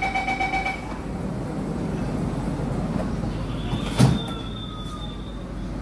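Door-closing warning beeps of a C151C metro train, stopping about a second in. Then the sliding doors shut with one sharp thud about four seconds in, over the steady hum of the stationary train.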